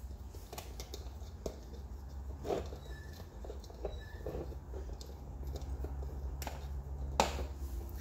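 Faint scattered clicks and taps of rubber bands being stretched and slipped onto the plastic pegs of a bracelet loom, over a low steady hum.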